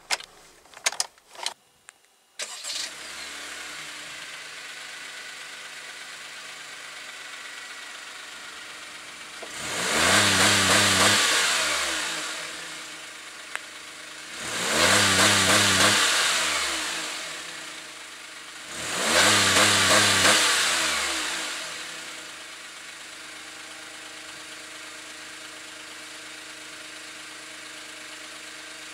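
Honda N-VAN's naturally aspirated 660 cc inline three-cylinder engine starting after a few clicks, then idling. It is revved three times, each rev rising in pitch and falling back over two to three seconds, and settles to idle again, heard from behind the van at the exhaust.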